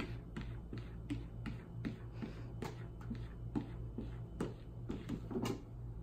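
Quick, irregular light taps and clicks, a few a second, over a steady low hum.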